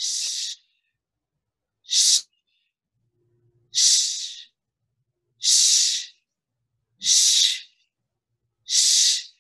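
Six forceful 'shh' exhales from fire breathing, a breathing exercise in which each quick inhale is followed by a sharp hissed breath out. They come one every one and a half to two seconds, with silence between them.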